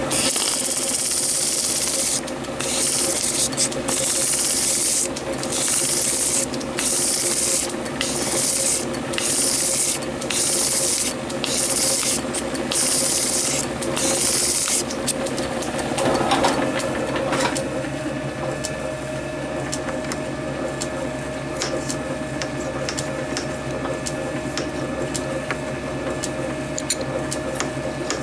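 Abrasive polishing stick rubbed against a brass piston spinning in a lathe, polishing it down to fit its cylinder: about a dozen hissing strokes of roughly a second each over a steady machine hum. The rubbing stops about halfway through, leaving the hum alone.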